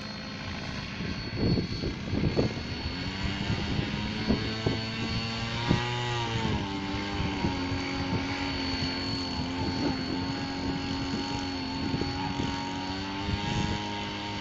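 Mikado Logo radio-controlled helicopter in flight: the rotor and motor hum steadily, dipping and shifting in pitch about six seconds in, over a thin, steady high whine.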